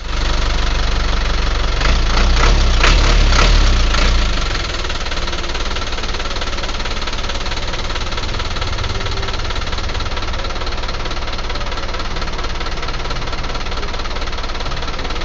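A light truck's diesel engine running, louder and with sharp clattering knocks for the first four seconds or so, then settling into a steady idle.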